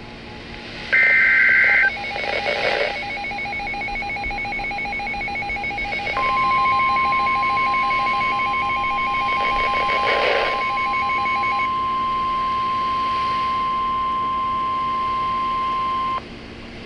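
Emergency Alert System warning tones. A short burst of warbling digital header data comes about a second in, then a fast-pulsing electronic beep, and about six seconds in a steady single-pitch weather-radio warning alarm tone begins. The alarm tone holds for ten seconds and cuts off suddenly.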